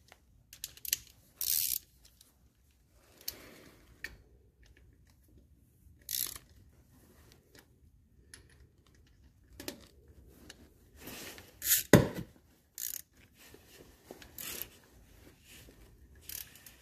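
Hand socket ratchet on an extension tightening the oil filter adapter housing bolts: short bursts of ratchet clicking, stroke after stroke, with one loud metallic clank about twelve seconds in.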